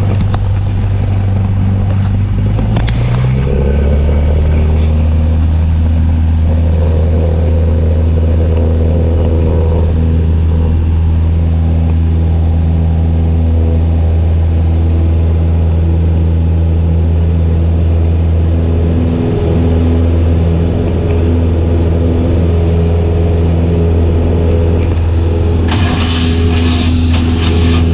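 Single-engine light aircraft's piston engine and propeller, heard from inside the cockpit. The engine runs up to full power about three seconds in, rising in pitch, then holds steady through the takeoff roll and liftoff. Music comes in near the end.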